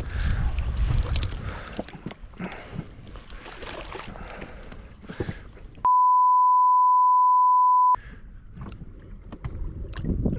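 A single steady beep tone about six seconds in, held for about two seconds while all other sound drops out: a censor bleep dubbed over a word. Around it, wind on the microphone and water splashing and lapping against a small inflatable boat.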